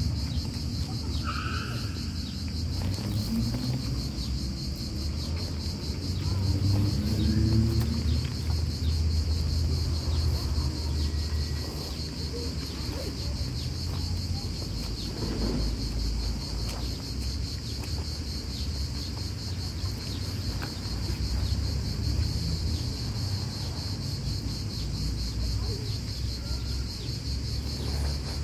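Steady high-pitched chirring of insects with a low rumble underneath, and faint close-up sounds of a cat chewing and lapping chunks of wet food.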